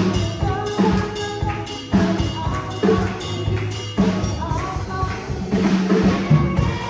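Live gospel band music driven by a drum kit, with a strong beat about once a second.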